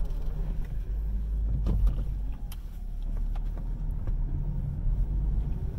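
Steady low rumble of a car heard from inside its cabin, with a few faint clicks and taps.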